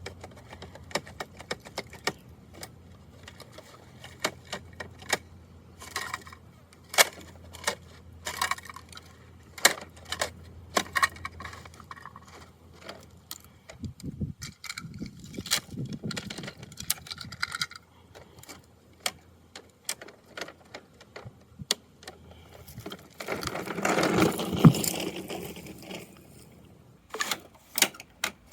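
Sharp plastic clicks and knocks from a Bruder toy garbage truck being handled, with a denser stretch of rattling a few seconds before the end.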